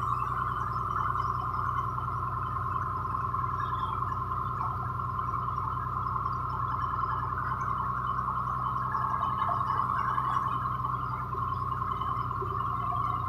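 Heavy rain falling, a steady unbroken rush, with a low steady hum underneath.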